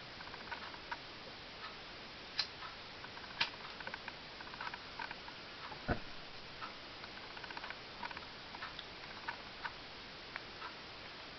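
Homemade can alcohol stove and pot ticking and clicking irregularly as the metal heats during a boil test, with a few sharper clicks and one louder knock about six seconds in.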